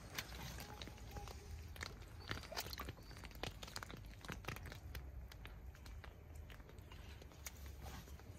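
Otters moving about: irregular light clicks and taps over a steady low rumble.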